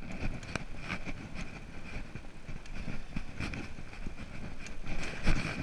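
Juiced RipCurrent electric bike ridden over rough ground. A steady high whine, likely from its rear hub motor, runs under frequent knocks and rattles of the bike over bumps, with a low rumble of tyres and wind. The loudest knock comes near the end.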